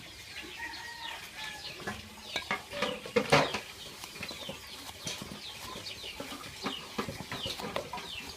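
A knife cutting chunks off a luffa gourd, the pieces dropping into an aluminium bowl with short knocks, the loudest about three seconds in. Chickens cluck and peep behind it.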